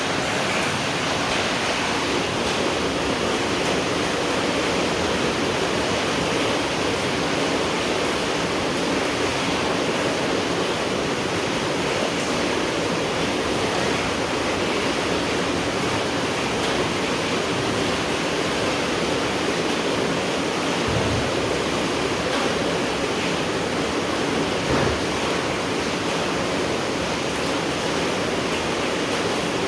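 Steady rain falling at night, an even hiss with no change in strength. There are a couple of soft low thumps about two-thirds of the way through.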